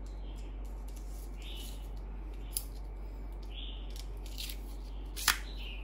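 Scattered light clicks and handling noises, about half a dozen, the sharpest a little over five seconds in, over a low steady hum.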